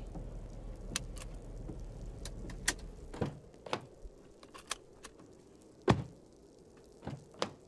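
Getting out of a car: a series of clicks and knocks from the door handle and door, with a heavy car door thump about six seconds in. A low steady hum under them dies away about four seconds in.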